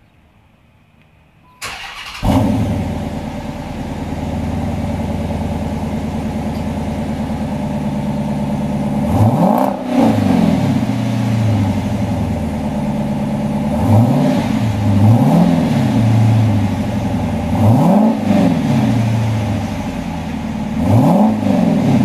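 A 2014 Dodge Challenger R/T Shaker Edition's 5.7-litre HEMI V8, breathing through a Mopar aftermarket exhaust, cranks and fires about two seconds in with a loud bark. It then settles into a steady idle. From about halfway on it is revved in about five short throttle blips, each rising and falling in pitch.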